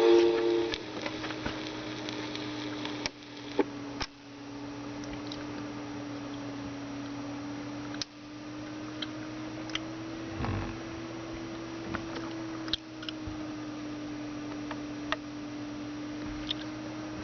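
Stylus on a 45 RPM red vinyl 7-inch record. The music cuts off within the first second, then only surface noise is left: a quiet hiss with scattered sharp clicks and pops over a steady, slightly wavering hum.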